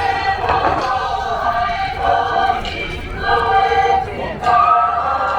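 A Pacific Islands performing group singing together as a choir, holding long notes in phrases with short breaks between them.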